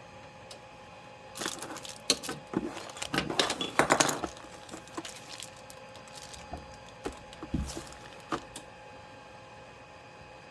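Hard parts and tools being handled: a dense run of clicks, rattles and scrapes for a few seconds, then a few scattered single clicks, over a faint steady hum.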